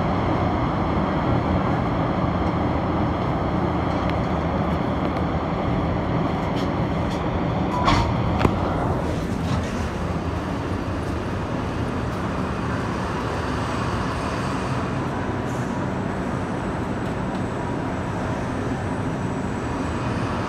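Metro train running into the station and standing at the platform: a steady rumble and hiss, with a single knock about eight seconds in.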